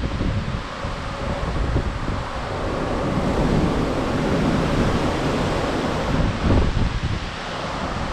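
Wind buffeting the microphone over the steady rush of the sea along a moving cruise ship, swelling through the middle with a low gust near the end.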